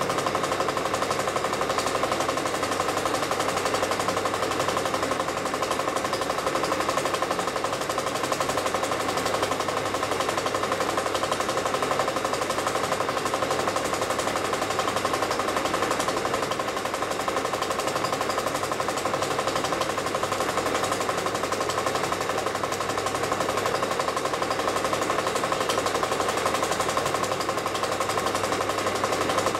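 Film projector running: an even, rapid mechanical clatter of the film being pulled through the gate, steady throughout.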